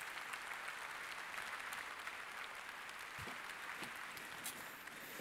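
Audience applauding, the clapping thinning out and dying down near the end.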